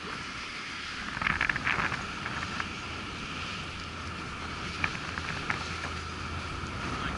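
Wind and handling noise on a body-worn camera's microphone, a steady rushing hiss. A quick run of sharp clicks comes about a second in, and single clicks about five seconds in.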